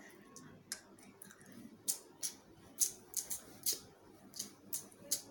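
A series of sharp finger snaps, about ten, loosely spaced at roughly two a second.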